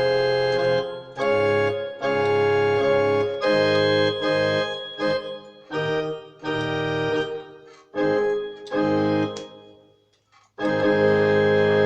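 Casio CTK-3500 keyboard's church organ voice playing a string of held chords, each sustained evenly and then cut off sharply as the keys are released, with a short break before a final long chord.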